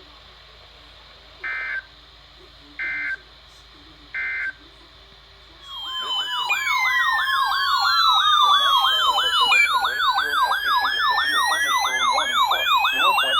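Three short electronic data bursts of the weather-radio alert code marking the end of a warning message, then several electronic alert sirens at once, some yelping rapidly and others sweeping slowly up and down, much louder than the bursts.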